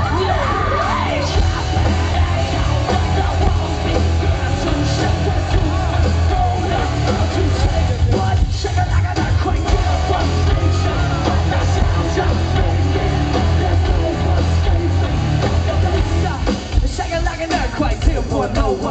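Live rock band playing loud through a festival PA, with a heavy bass and drum beat and shouted, sung vocals, heard from within the crowd.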